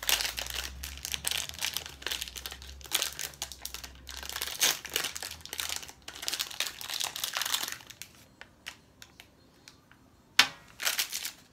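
Gold foil wrapper crinkling as it is unwrapped by hand, with dense crackling for about eight seconds, then a few scattered clicks. A single sharp tap comes near the end, followed by a little more crinkling.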